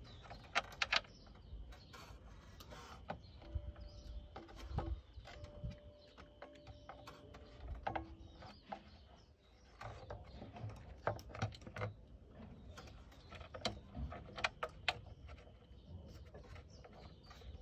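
Irregular metallic clicks and taps of hand tools and bolts as a cover is fitted to the engine, some in quick clusters of a few clicks.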